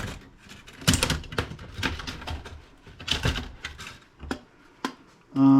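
Irregular clicks, taps and light clatter of a laptop's motherboard and its plastic and metal parts being handled during disassembly, several sharp knocks spread unevenly through.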